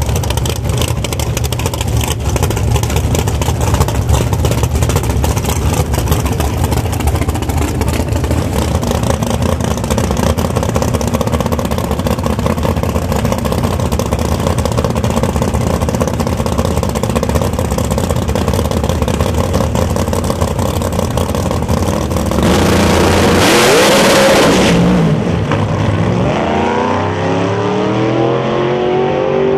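Pro Mod drag cars' big V8 engines running with a heavy, rough idle at the starting line, then a loud full-throttle launch about 22 seconds in. After that the engine pitch sweeps up and down repeatedly as the cars pull away down the track.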